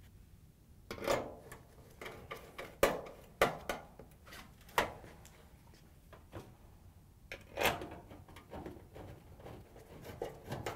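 Scattered light clicks and knocks of metal handling, about eight short sharp ones, as a dryer's sheet-metal front panel is held in place and a screw is set with a quarter-inch nut driver.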